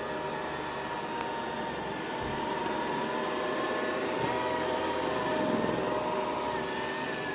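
Deik robot vacuum cleaner running: the steady whir of its suction fan and brushes, with its pitch wavering slightly around the middle.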